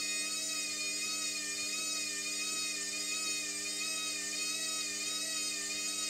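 Hotpoint front-loading washing machine running with a steady, noisy whine made of several tones at once, from a low hum up to high-pitched whistling, some of the higher tones wavering slightly.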